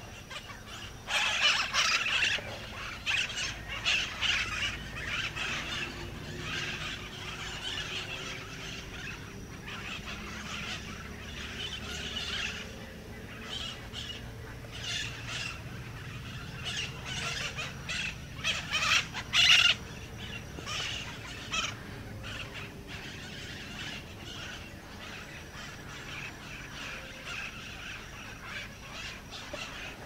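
White-eyed parakeet calls: a long series of short calls, loudest in a cluster about a second in and again around twenty seconds in.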